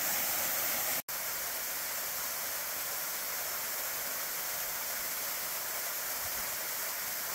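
Steady rush of a waterfall running with really good flow. The sound is broken once, about a second in, by a split-second dropout.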